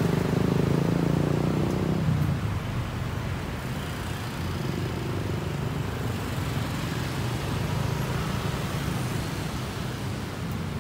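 Busy city road traffic. A bus and motorbikes pass close in the first two seconds with their engines running loud, and after that comes a steadier hum of cars and motorbikes going by.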